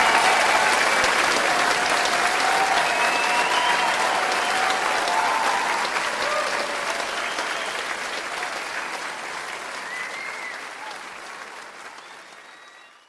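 Audience applauding, with a few voices calling out over the clapping; the applause dies away gradually and cuts off at the end.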